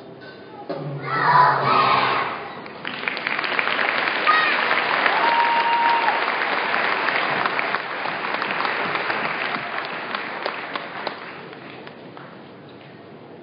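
Audience applauding a children's choir song, a dense spread of clapping that builds about three seconds in and fades away near the end. A few voices call out briefly before the clapping begins.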